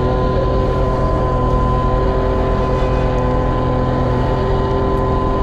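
Boat engine running steadily at a constant speed, with water rushing along the hull as the fishing boat moves.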